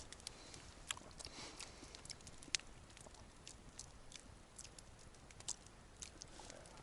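Campfire crackling faintly: scattered small, sharp clicks and pops at irregular intervals over a low hiss.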